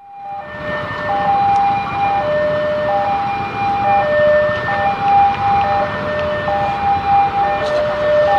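Railway level-crossing warning alarm sounding its alternating two-tone signal, a higher tone and a lower tone taking turns about once a second, warning that a train is approaching. Under it, motorcycle engines are idling.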